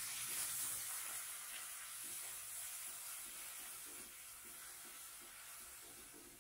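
Light soy sauce sizzling in a hot frying pan with the fried aromatics and bean paste, fading as the pan cools, while a plastic spatula stirs with soft scrapes.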